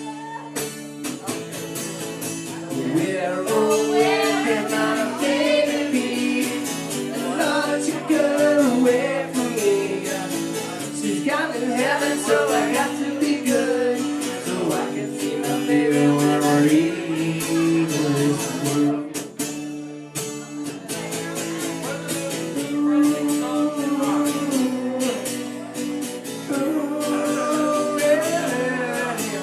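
A song sung with guitar accompaniment, the voice rising and falling in sung phrases over steady strummed chords.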